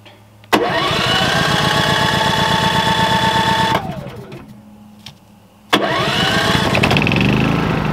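Predator 3500 inverter generator's single-cylinder engine, long unused, fires up, climbs to a steady run, then dies after about three seconds. Near six seconds in it starts again and keeps running.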